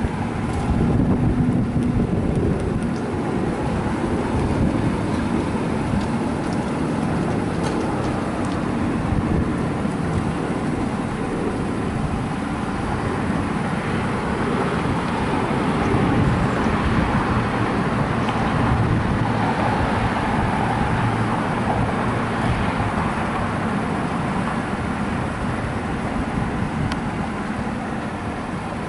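Steady low rumble of vehicle engines and traffic noise, with no sharp events standing out.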